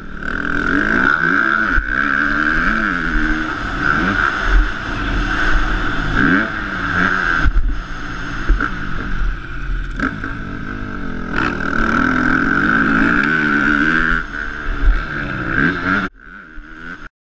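Motocross bike engine heard up close from a helmet camera, revving up and backing off again and again as the rider accelerates and shuts the throttle through the track. The sound drops away abruptly near the end.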